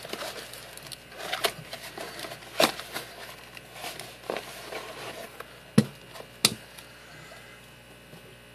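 A parcel being unwrapped by hand: scattered rustles, taps and knocks of packaging and its contents being handled, with two sharp clicks a little past halfway.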